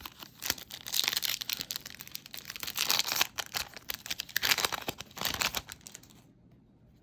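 Foil trading-card pack being torn open and its wrapper crinkled, a dense crackling that stops about a second before the end.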